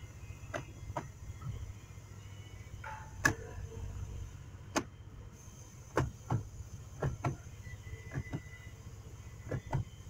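Irregular clicks and knocks from the Grand Cherokee's automatic gear selector lever being moved and tapped between positions, over a low steady hum.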